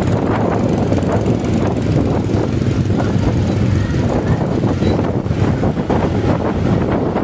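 Motorcycle engines running in moving street traffic, a steady low rumble with road and wind noise.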